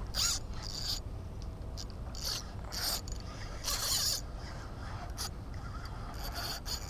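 Spinning reel cranked in quick spurts, its gears whirring in several short bursts as a topwater lure is retrieved fast across the surface.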